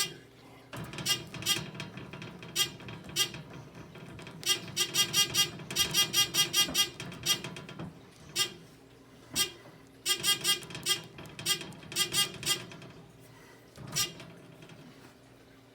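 Fire alarm horns sounding in short buzzy pulses, at times single and at times in rapid clusters, over a steady low hum.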